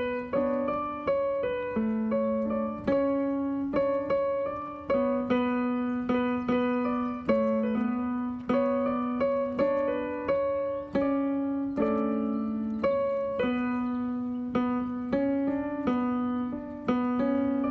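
Background music played on an electronic keyboard with a piano voice: a simple repeating tune of single notes struck about twice a second, each note dying away before the next.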